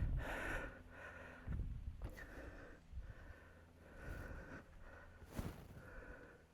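A large poplar log being rolled by hand on a manual sawmill's bed: a few sharp knocks with scraping between them, and heavy breathing from the effort.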